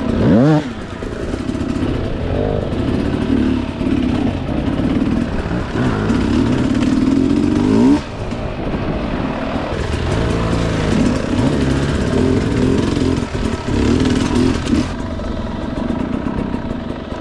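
Two-stroke dirt bike engine revving up and down over and over as the throttle is worked, with a quick sharp rev right at the start.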